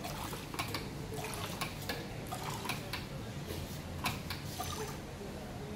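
Two-head perfume filling machine running as it dispenses liquid into a small glass bottle: a steady low pump hum with liquid running, stronger a little past the middle, and several sharp clicks from the switch pad and the bottle being handled.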